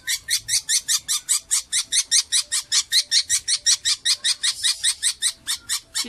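Budgerigar screaming: a rapid, even string of shrill calls, about seven a second, from a freshly bathed bird protesting at being held.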